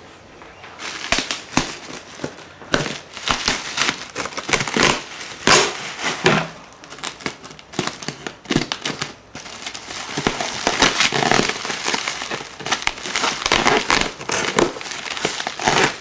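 Plastic bubble wrap being handled and unwrapped, crinkling and crackling irregularly. The crinkling starts about a second in.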